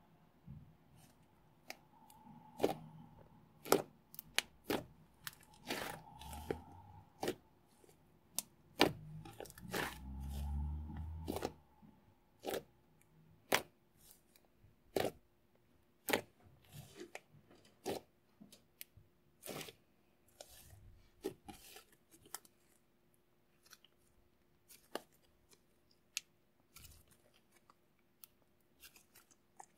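Thick cream cheese slime being stretched, pressed and poked by hand, giving off irregular sharp sticky pops and crackles as it pulls apart. A low rumble rises briefly about ten seconds in.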